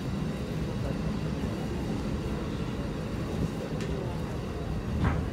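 Rail carriage of a tourist train rolling slowly through a station, heard from inside its open-sided car: a steady low rumble of wheels and running gear, with a short knock about five seconds in.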